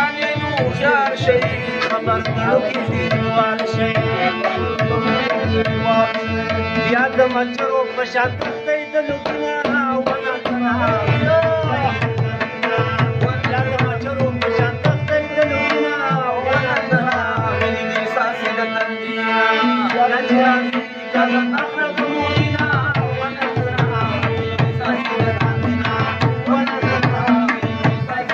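Harmonium and tabla playing a Pashto ghazal: the harmonium holds a steady drone under its melody while the tabla keeps up dense, rhythmic strokes. The deep bass-drum strokes drop out for a few seconds past the middle, then return.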